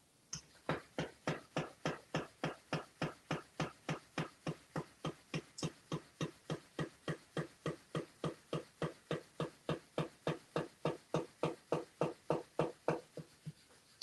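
Motorized flopping-fish toy slapping its tail against a stone countertop, a regular tapping about three and a half times a second that starts a moment in.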